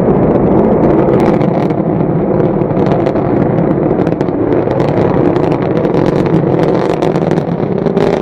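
Rocket engine roar with a crackle of short pops running through a steady rumble.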